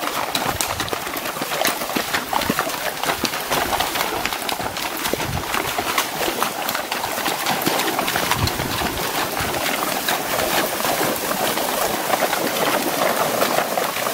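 Several horses wading through a shallow, stony creek: their hooves splash and knock in the water in a constant run of splashes.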